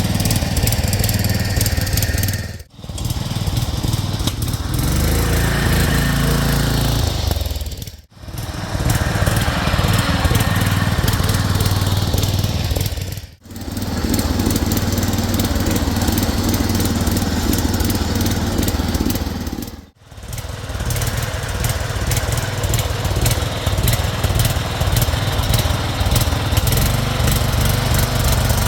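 Small engine of a converted Craftsman garden tractor running under load as it drives along a trail. The sound drops out briefly four times.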